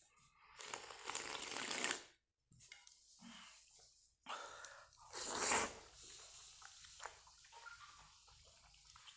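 A person slurping spicy noodles: two long, loud slurps, one about half a second in and a louder one around the middle, followed by wet chewing.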